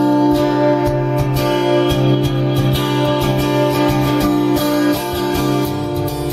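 Music with strummed acoustic guitar, played back from a cassette on a Pioneer CT-F1000 deck.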